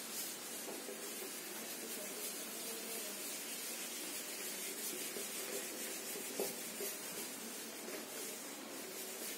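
Whiteboard eraser rubbing marker writing off a whiteboard, a soft rubbing sound over a steady background hiss.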